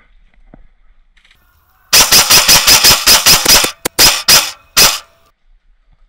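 Airsoft rifle firing: a fast full-auto burst of about a dozen sharp shots lasting nearly two seconds, starting about two seconds in, then four more shots spaced a few tenths of a second apart.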